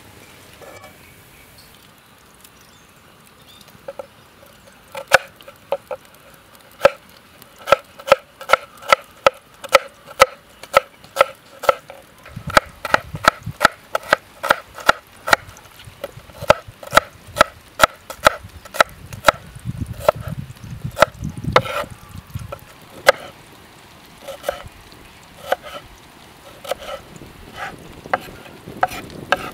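Kitchen knife chopping red onions on a wooden cutting board: the blade knocks on the board at a steady rate of about two strikes a second, with a few short pauses. The chopping starts a few seconds in.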